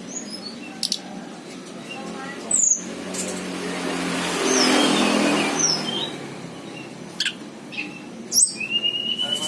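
A tledekan gunung songbird giving scattered short, high, downward-sliding chirps, with a few sharp clicks between them. A rush of noise swells and fades around the middle.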